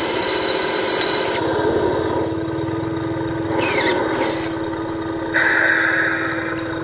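Radio-controlled dump truck straining in deep mud: a steady motor hum, with three bursts of higher, whining drive noise as throttle is applied. The bursts come at the start, near the middle, and over the last second and a half, and the whine slides up in pitch as the first two begin.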